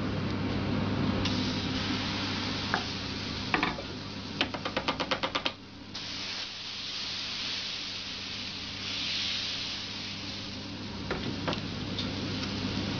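Crêpe batter sizzling on a hot crêpe griddle as it is spread thin with a wooden spreader, with a steady low hum underneath. A quick run of about nine clicks comes a little over four seconds in, and the hiss swells briefly near the ten-second mark.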